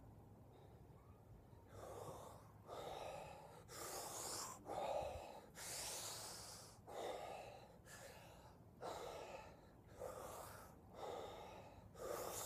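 A man breathing hard and fast through the mouth as a deliberate breathwork exercise. It is an even series of about eleven forceful rushing breaths, roughly one a second, beginning about two seconds in.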